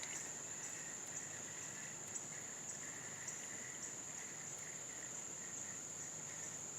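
Steady, high-pitched insect trilling, with a fainter, lower insect call under it.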